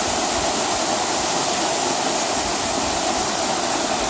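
Rushing water: a loud, steady, even noise with no rhythm.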